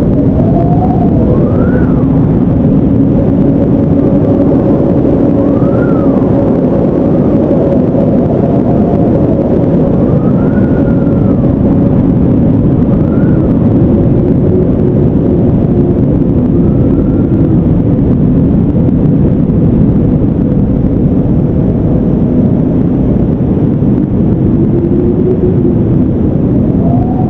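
Strong wind blowing steadily, a low rushing with faint whistling tones that rise and fall every few seconds.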